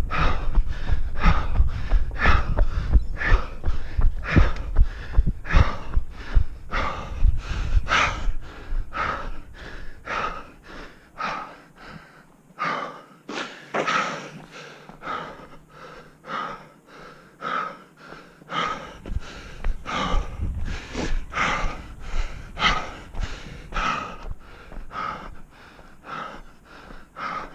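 A runner breathing hard after finishing a 5 km run: quick, regular breaths close to the microphone, about two a second, getting somewhat quieter after the first several seconds.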